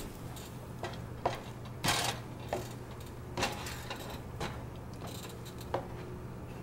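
Slotted plastic spatula scraping and tapping against a nonstick frying pan while eggs are scrambled: short, uneven strokes, one every half second to a second, over a steady low hum.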